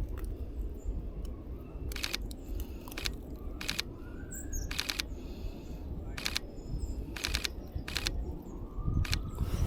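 Sony a7R V mirrorless camera's shutter firing, a series of sharp clicks every second or so, some in quick pairs, over a steady low outdoor rumble. Faint bird chirps now and then.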